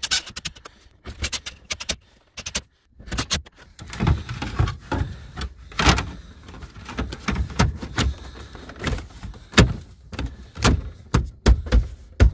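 Plastic dashboard trim on a Jeep Cherokee XJ being handled and pressed into place: an uneven run of sharp clicks, knocks and rattles with rustling in between.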